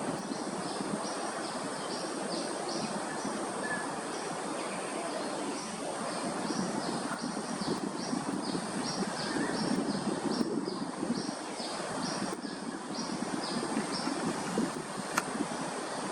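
Outdoor ambience: a steady broad rumble of background noise, with a rapid series of short high chirps, about three a second, and a thin steady high whine above them.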